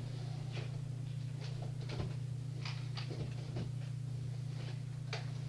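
Faint scattered clicks and light knocks, about half a dozen, over a steady low hum.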